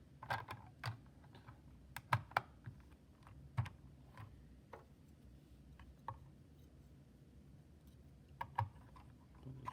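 Plastic Lego pieces of the 60253 Ice-Cream Truck set clicking and knocking as the model is handled, in scattered sharp clicks with a quieter stretch in the middle.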